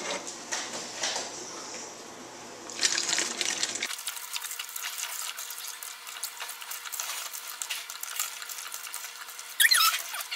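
Sugar water pouring from a saucepan through a silicone funnel into a plastic jug: a steady splashing trickle with small clinks and ticks. High, wavering squeaky chirps come in near the end.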